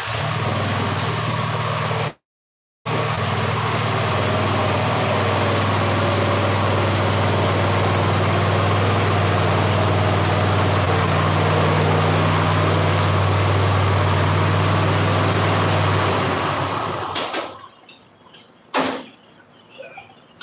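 Cub Cadet zero-turn mower engine running steadily, just started, as the mower is driven off the trailer; a half-second gap in the audio a couple of seconds in. The engine sound falls away about seventeen seconds in.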